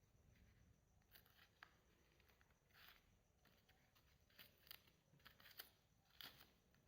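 Very faint sticky clicks and crackles of clay slime being pressed and pulled by hand, scattered unevenly, with a few sharper ones in the second half.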